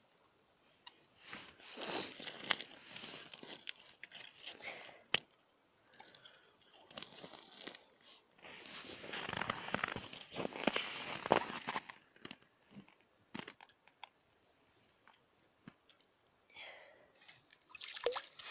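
Crunching and crackling of broken ice chips and frozen crust, with the rustle of heavy winter clothing, as a crouching angler shifts over an ice-fishing hole. It comes in two longer stretches with sharp clicks scattered through, then turns quieter.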